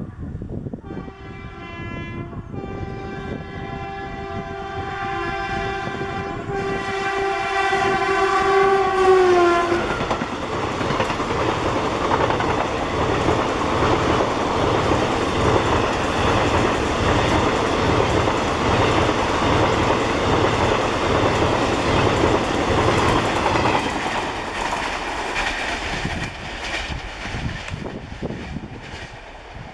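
Dual-tone horn of a WCAM2P electric locomotive sounding as it approaches at speed: a brief lower note, then a higher note held for about seven seconds, its pitch sliding down as the locomotive passes. Then the rumble and clickety-clack of the express's coaches rushing past for about fifteen seconds, fading near the end.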